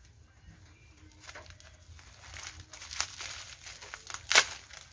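Plastic bubble-wrap packaging being handled and pulled open, crinkling. Quiet at first; the crinkling builds from about a second in, with a sharp crackle in the middle and a louder one near the end.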